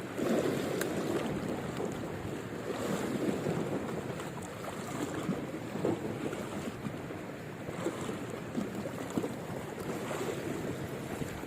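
Wind buffeting the microphone over the sound of water moving at sea, an irregular rushing noise with no engine or voice in it.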